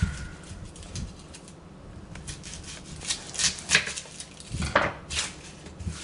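Boker ceramic utility knife slicing through an onion: a few short, irregular cutting taps, clustered about three seconds in and again near five seconds.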